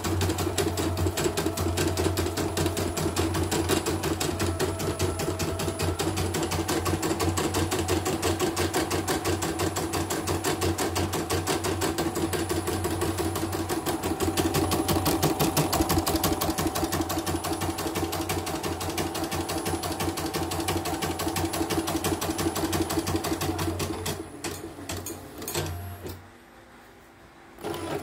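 CNY computerised embroidery machine stitching a test design at speed with a rapid, even needle rhythm over a steady motor hum, running smoothly after servicing. It stops about 24 seconds in, followed by a few separate clicks.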